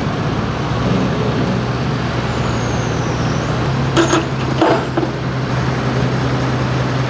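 Chevrolet Silverado's Duramax diesel engine idling steadily after its sled pull. A couple of short, sharp sounds come about four seconds in.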